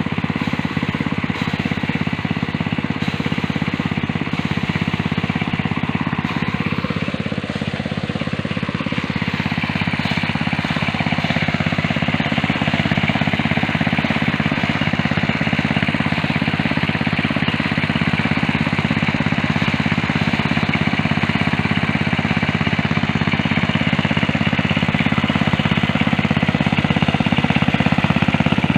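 A small engine runs steadily at a constant speed throughout.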